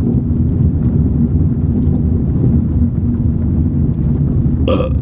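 Steady low rumble of a car's engine and tyres heard from inside the cabin while driving, with a constant hum throughout. A short, higher-pitched sound comes near the end.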